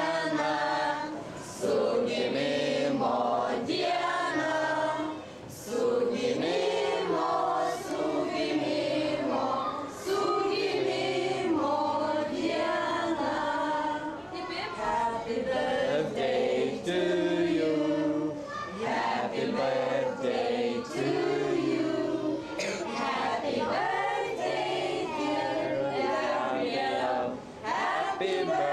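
A group of adults and children singing a birthday song together to a child in front of a cake with lit candles, unaccompanied, in long held phrases with short breaths between them.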